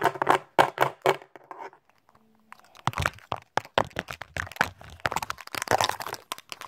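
Plastic toy blocks and fingertips tapping, scratching and rubbing right against the phone's microphone: a rapid run of clicks and rustles that pauses briefly about two seconds in, then starts again.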